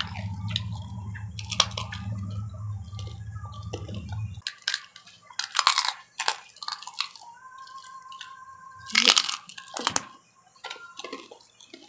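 Crisp fried macaroni chicharon being bitten and chewed, a run of sharp crunches and crackles. A steady low hum sounds under it and cuts off about four seconds in.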